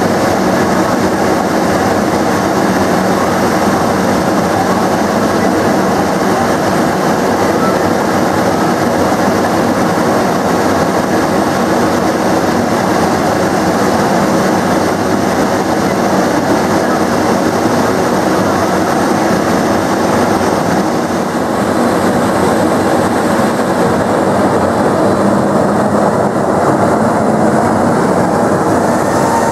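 Embraer 195's GE CF34-10E5 turbofan engines running at idle: a loud, steady rumble and whine. Near the end one tone rises slightly as the jet begins to roll.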